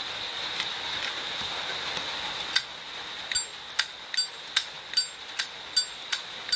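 Silver-plated Zippo lighter's hinged lid being flipped open and snapped shut over and over, a quick run of sharp metallic clicks about two to three a second that starts about two and a half seconds in. This is the lid click, the sound the seller calls nice on this lighter.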